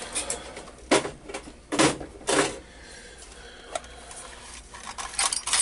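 Plastic drill-bit case being handled and opened: a few sharp clicks and clacks, the loudest about one, two and two and a half seconds in, with smaller clicks near the end.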